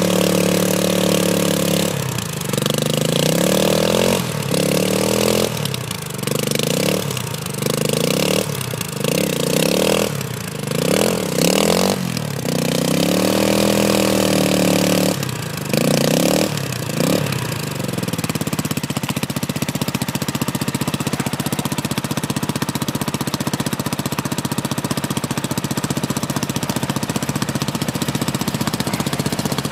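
Triton 450 SM quad's engine held at high revs with the rear wheels spinning in mud, then revved up and down in quick blips. About eighteen seconds in it settles to a steady idle.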